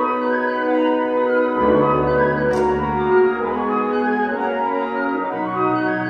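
Wind symphony playing slow, held chords across many voices, with low instruments joining about a second and a half in and a short high percussive accent about halfway through.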